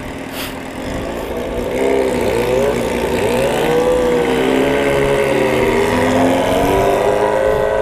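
Motorcycle engine revving while riding at speed, its pitch rising and falling several times and getting louder about two seconds in.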